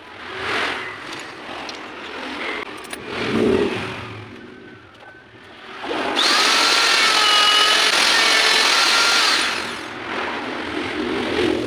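Electric straight die grinder clamped to a lathe carriage as a milling spindle, switched on about six seconds in and running at speed with a steady high whine for about three seconds, then shut off and winding down. Before it, irregular handling noises as the grinder is set up.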